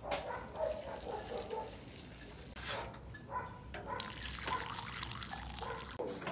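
Milky mutton bone broth poured from a ladle through a mesh strainer into an electric hot pot of raw lamb, splashing and trickling.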